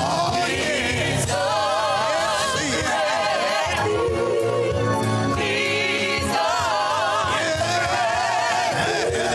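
Live gospel worship song: a singer with strong, wavering vibrato, backed by organ and keyboard.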